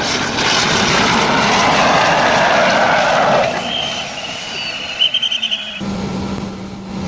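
Loud roar of aircraft noise for about three and a half seconds, followed by a high steady tone that breaks into rapid pulses. An abrupt cut then brings a low steady hum.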